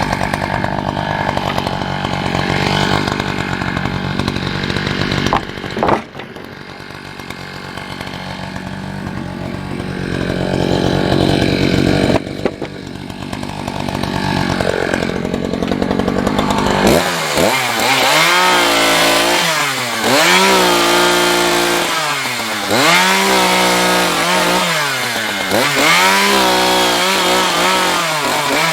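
Gas engine of a wood saw running steadily, dipping briefly twice, then rising and falling in pitch over and over, about every two and a half seconds, as it is loaded and let off while cutting wood.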